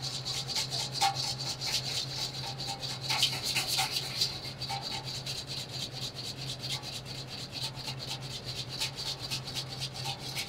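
A wire whisk beating against the inside of a stainless steel mixing bowl in rapid, regular scraping strokes. It is emulsifying a vinaigrette as oil is streamed in.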